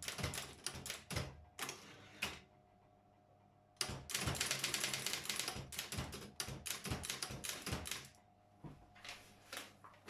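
Brother 4612 electric typewriter typing: quick key strikes, a pause with the machine's motor humming steadily, then a fast, dense run of strikes about four seconds in, followed by more separate strikes.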